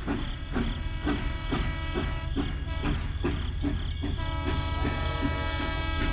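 Small motor running steadily, with a regular knock about twice a second; an extra higher tone joins about four seconds in.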